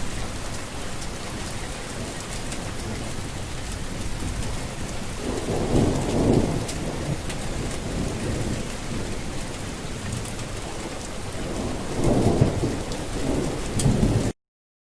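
Steady heavy rain with two low rolls of thunder, one about five seconds in and another near the end. The sound cuts off abruptly just before the end.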